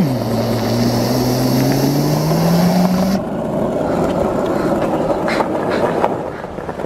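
Skateboard wheels rolling on asphalt as a rider coasts sitting on the board, a steady rumble with a few clicks. For the first three seconds a louder engine-like hum dips, then rises steadily in pitch, and cuts off abruptly.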